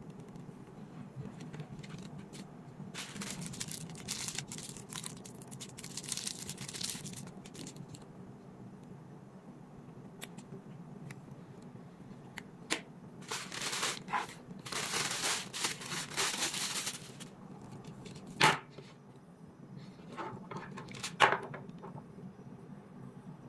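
Packaging of a set of curtain lights being handled and unwrapped: crinkling and rustling in stretches of a few seconds, with two sharp clicks near the end.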